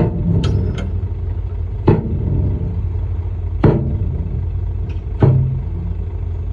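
Komatsu bulldozer's diesel engine rumbling steadily under load, with sharp metallic clanks every second or two, several close together near the start.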